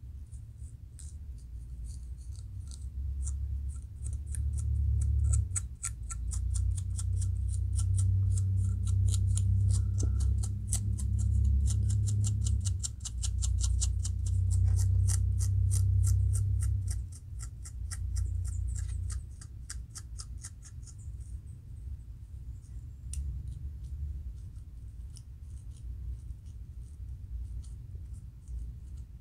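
Fine-toothed metal comb scraping the scalp between locs in quick, rhythmic strokes, lifting flakes of dry-scalp dandruff, over a low rumble. The strokes thin out to scattered scratches about two-thirds of the way through.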